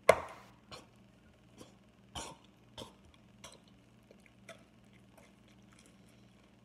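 A sharp knock at the start, as a bowl is set down on a stone countertop, then a man coughing and gagging in short spaced bursts, about one a second, dying out after about four and a half seconds: he is retching on a mouthful of the mashed bread, fruit and candy mixture.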